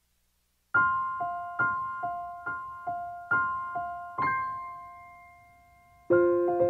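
Solo piano music. After a brief silence, single notes start in a repeating figure about twice a second, then one note is held and fades, and fuller chords come in near the end.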